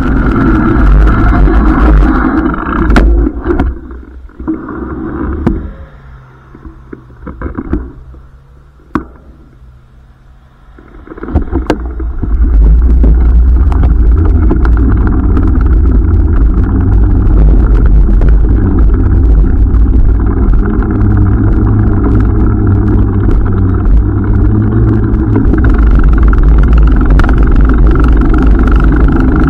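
Wind buffeting the microphone and road rumble from a bicycle being ridden over pavement. About four seconds in it drops away for some seven seconds, leaving a faint steady hum, then comes back loud.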